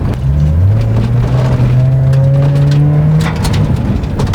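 Car engine accelerating on a rough dirt track. Its note drops about half a second in, as at a gear change, then climbs steadily for nearly three seconds, with steady road and tyre noise underneath.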